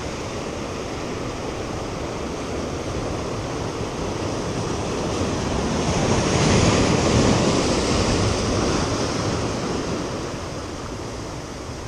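Ocean surf breaking and washing over a rocky shoreline. One larger wave swells and crashes about halfway through, then the wash slowly dies down.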